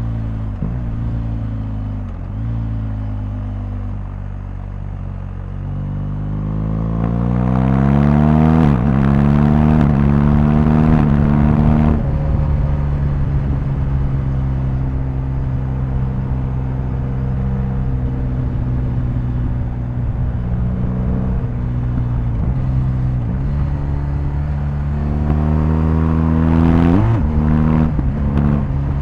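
BMW R1250GS boxer-twin engine running under way. The revs climb about a quarter of the way in and drop sharply at a gear change, then it holds steady before climbing again and shifting once more near the end.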